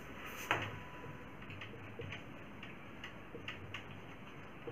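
Marker pen on a whiteboard while a word is written: faint, irregular small clicks and taps, one a little stronger about half a second in.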